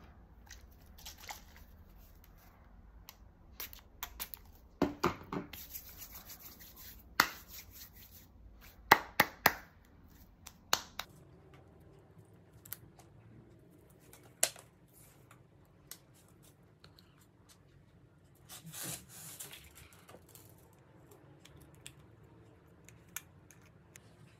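Steel ball chain and small jewellery findings handled on a wooden desk: scattered sharp clicks and taps, a little chain rattle and rubbing, and a few crisp snips as wire cutters cut the ball chain to length.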